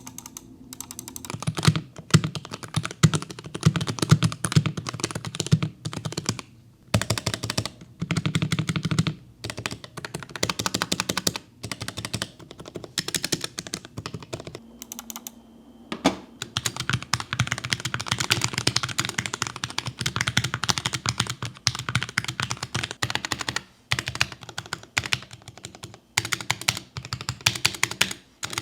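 Fast typing on a modified Keychron K6 mechanical keyboard, a dense run of keystrokes with a few short pauses.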